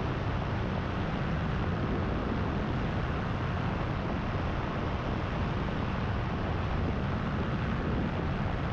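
Paramotor engine and propeller running steadily in cruise flight, with wind rushing over the microphone. The propeller is a repaired one, rebalanced with small added weights.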